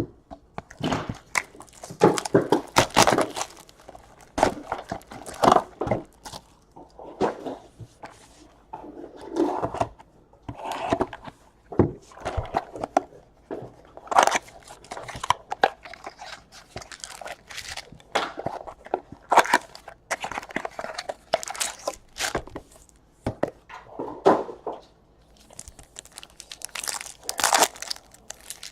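Bowman Chrome trading-card pack wrappers being torn open and crinkled, in short irregular bursts of crackling and rustling.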